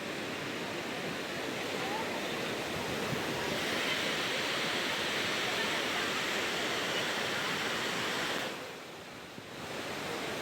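Steady rush of fast-flowing water, a waterfall or mountain river, dipping briefly for about a second near the end.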